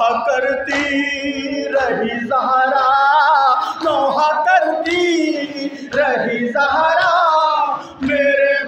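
A man chanting a noha, a Shia mourning lament, unaccompanied into a microphone, his voice wavering up and down in long phrases broken by short pauses about every two seconds.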